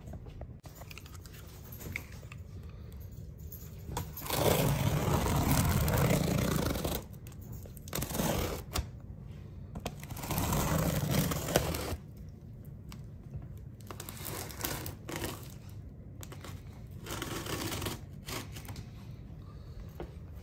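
Packing tape on a cardboard shipping box being slit open with a knife: two long ripping stretches, one a few seconds in and one about ten seconds in. Shorter scrapes and cardboard rustles come between and near the end.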